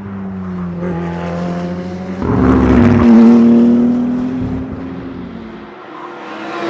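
BMW M4 GT3's 3.0-litre twin-turbo straight-six (P58) running at speed on track. It swells to its loudest a little over two seconds in as the car goes by, then fades. A second pass starts building near the end.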